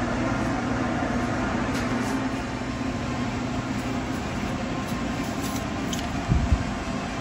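Steady mechanical room hum in a workshop, with a short low bump about six seconds in.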